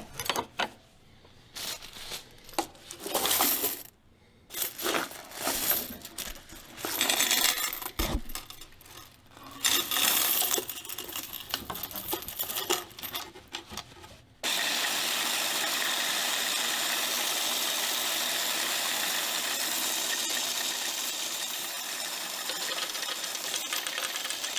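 Nickels and dimes clattering in irregular handfuls into a coin-counting kiosk. About fourteen seconds in, the machine starts up and runs steadily, with coins rattling through it as it counts.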